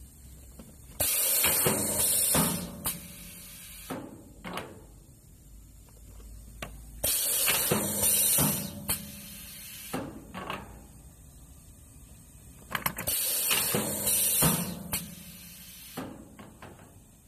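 Semi-automatic gummy candy depositor cycling on compressed air: three loud hisses of air, about six seconds apart, each with clacks and knocks of the pneumatic cylinders and mould tray. It is quieter between cycles.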